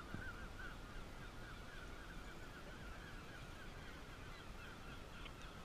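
Faint bird calls: a fast string of short, repeated calls, several a second, over a low rumble.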